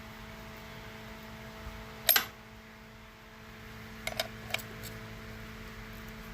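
A wrench clinks sharply against a stuck, free-spinning cover nut about two seconds in, then taps lightly a few times around four seconds in, over a steady electrical hum.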